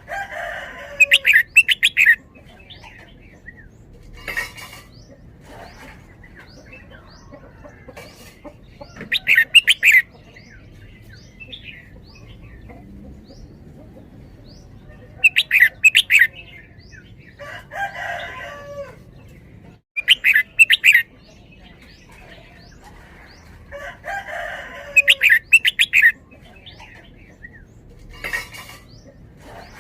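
Red-whiskered bulbul singing short, loud whistled song phrases every few seconds, with fainter chirps from other birds in between.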